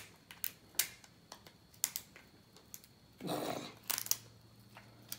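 Steamed lobster tail shell being pulled apart by hand: scattered small clicks and cracks from the shell, with a cluster of them about four seconds in. There is a brief soft rush of noise just before that cluster.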